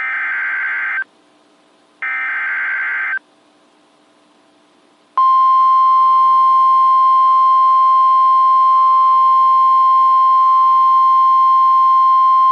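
NOAA Weather Radio Emergency Alert System alert: two roughly one-second bursts of buzzing digital SAME header data. After a short pause, about five seconds in, the steady single-pitch 1050 Hz warning alarm tone starts; it announces a new warning bulletin.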